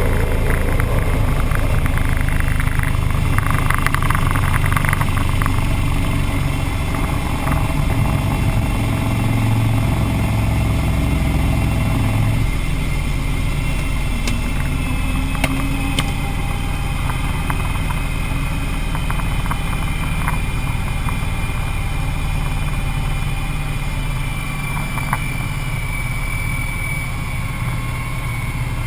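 Avro Vulcan's four Rolls-Royce Olympus turbojets heard from inside the aircraft, a loud steady rumble with a faint high whistling tone that drifts slightly lower in the second half, and a few light rattles.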